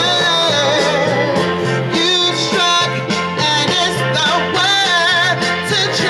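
A woman singing a soul-pop song into a microphone, with sliding runs in the melody, over a recorded backing track with a steady, repeating bass line. Both come through a portable PA speaker.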